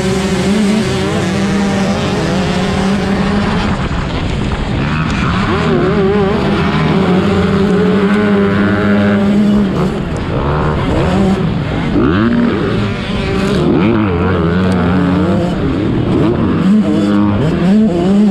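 A pack of 125cc two-stroke motocross bikes racing, several engines at once. They hold a steady high note through the first half, then rise and fall in pitch from about ten seconds in as the riders work the throttles.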